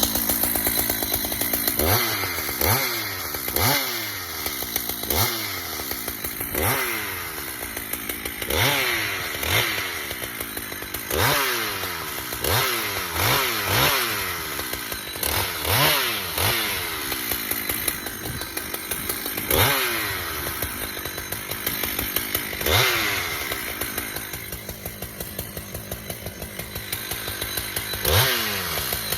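Husqvarna chainsaw bucking a felled red maple. Its engine revs up and falls away over and over as it cuts through the wood, roughly once a second, easing off to a lower run for a few seconds near the end.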